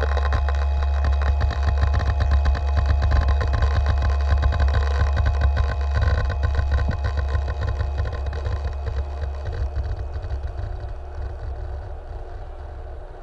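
Deep electronic drone with several steady higher tones and a dense crackle, fading out over the last few seconds: a sci-fi sound-design transition.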